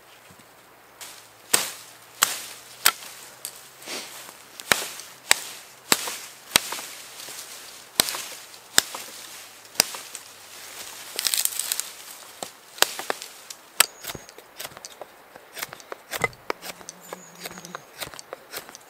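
Sharp cutting strokes of a blade lopping side twigs off a green, leafy branch, roughly one or two a second, with a short rustle of leaves about eleven seconds in.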